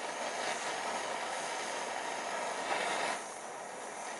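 Steady hiss of a gas soldering torch flame heating a silver knife-handle ferrule while silver solder is run into the seam. The hiss drops a little about three seconds in.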